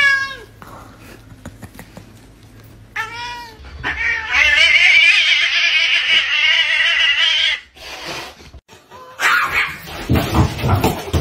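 Cats meowing: short calls, then one long, loud cat cry of about three and a half seconds starting about four seconds in. Near the end comes a burst of rough, noisy sound.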